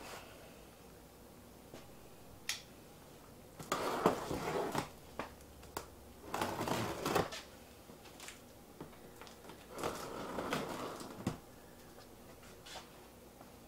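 Large cardboard box being opened by hand: three scraping, tearing bursts of cardboard and packing tape, each about a second long, with a few light clicks between.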